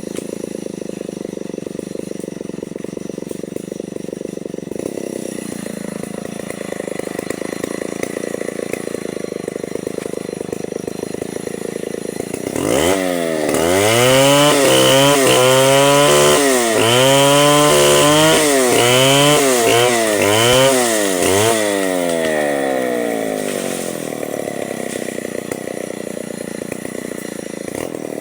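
Chainsaw idling, then revved up about halfway through and cutting into mahogany, the engine's pitch dropping and recovering again and again as the hard wood loads it, before it eases back toward idle near the end.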